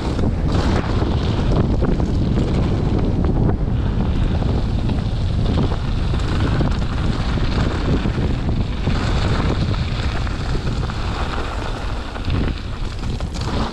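Wind buffeting the microphone of a mountain bike's ride camera during a descent: a loud, steady rushing rumble, heaviest in the low end, with no speech.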